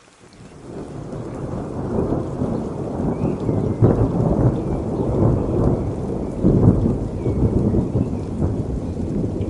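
A long roll of thunder swells in over about two seconds and rumbles on, with louder surges twice, over steady rain.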